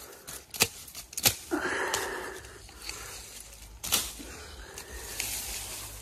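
Hand sickle cutting through thick, woody weed stems: three sharp cracks as the blade strikes, with a burst of rustling stalks and leaves about one and a half seconds in.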